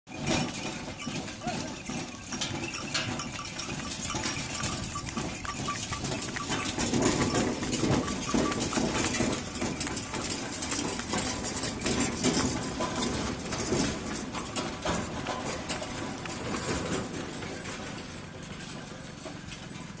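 Ox-drawn bullock carts going by on a paved road: the oxen's hooves clop and the spoked cart wheels roll and rattle. It is loudest as a cart passes close about halfway through, then eases off.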